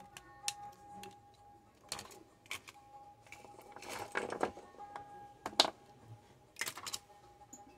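Sharp plastic clicks and taps of a small mobile phone being taken apart by hand, its circuit board and screen lifted from the plastic housing with a metal tool; a rattly cluster in the middle and one loud click a little past halfway. Faint background music underneath.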